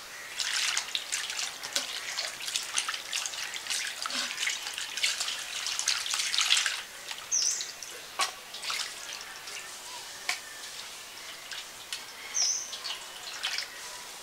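Small river fish being handled in a steel bowl of water: splashing and dripping, busiest in the first half and then scattered drips as the fish are lifted out onto a plate. A bird chirps briefly twice.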